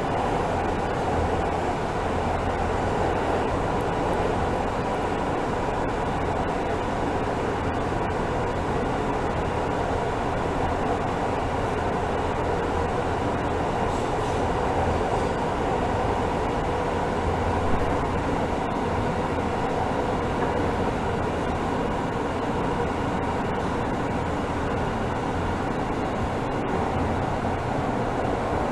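NYC subway L train car running through the tunnel, heard from inside the car: a steady ride noise of wheels on rail with a low hum underneath, and a single click about eighteen seconds in.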